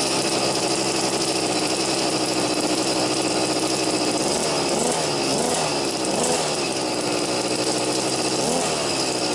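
Brush cutter engine running through a moped's stock muffler, quite quiet, revved up and back down around the middle and again near the end. When it is revved, the intake noise is louder than the exhaust.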